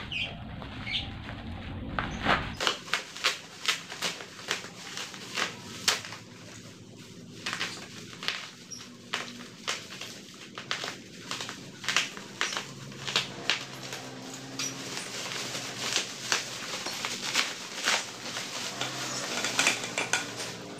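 Packaging of metal curtain rods being unwrapped and handled by hand: a long irregular run of crinkles, clicks and light knocks. A low hum stops about two and a half seconds in.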